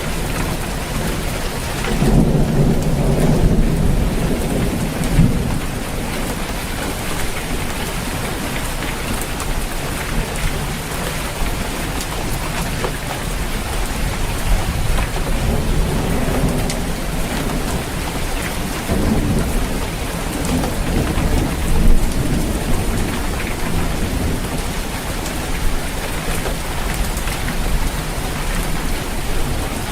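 Steady rain falling on a roof, with rolls of thunder rumbling low about two seconds in and again about two-thirds of the way through.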